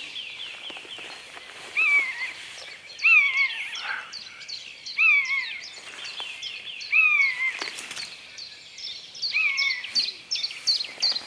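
Common buzzard giving its mewing call five times, about two seconds apart, each a slurred note that rises and then falls, echoing off the lake. Behind it a dawn chorus of small songbirds chirps, becoming a fast run of high notes from about nine seconds in.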